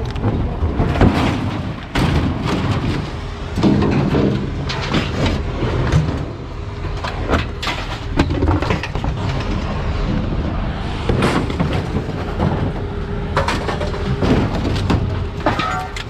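Scrap metal and appliance parts being thrown off a truck bed by hand: a run of irregular metal clangs and crashes, some of them sharp and loud, over a steady low rumble.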